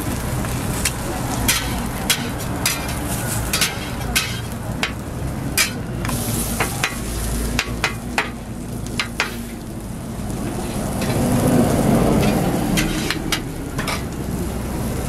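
Eggs, a meat patty and buttered bread slices sizzling on a flat-top griddle, a steady hiss with frequent sharp pops. A low rushing sound swells up for a couple of seconds about eleven seconds in.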